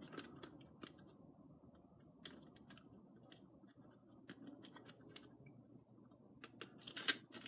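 Plastic shrink-wrap on a Blu-ray box set being picked and torn open: faint, irregular sharp clicks and snips, then louder crinkling of the plastic near the end.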